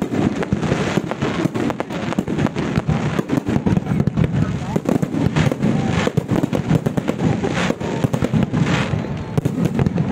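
Aerial fireworks display: a dense, continuous string of bangs and crackling from shells bursting overhead, with no pause.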